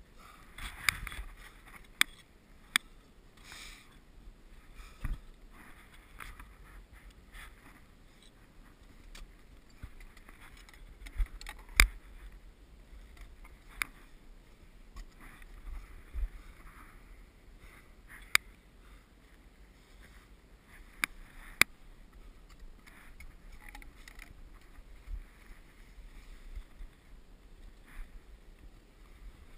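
Ice axe and climbing boots knocking and scraping on rock during a scramble, with a dozen or so sharp clicks scattered through it, the sharpest about twelve seconds in. Soft bursts of breathing and clothing rustle fill the gaps.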